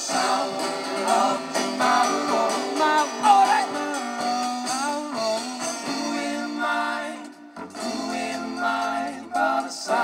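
Live band music: voices singing over guitars.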